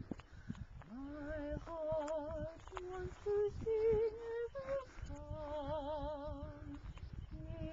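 A person humming a wordless tune with a wavering vibrato: long held notes, then a short run of higher, rising notes about three to four seconds in, then another long held note. Wind rumbles on the microphone underneath.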